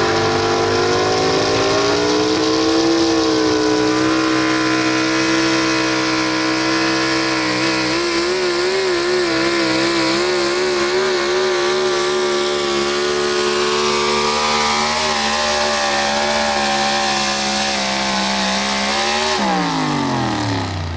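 Pro Stock 4x4 pulling truck's engine running hard at high revs under load through a pull, its pitch wobbling in the middle, then dropping off sharply near the end.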